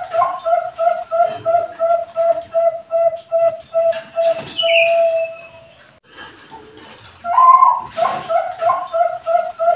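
Perkutut bangkok (zebra dove) cooing: a rapid run of short, even coos, about three a second, that ends on a longer held coo about five seconds in. After a short pause a new phrase begins with a higher opening note and runs into the quick coos again.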